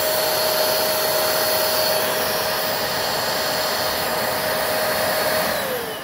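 Hoover WindTunnel V2 upright vacuum's motor running at full suction into a sealed airflow test box: steady rushing air with a constant high whine. Near the end the whine falls in pitch and the noise fades as the motor winds down.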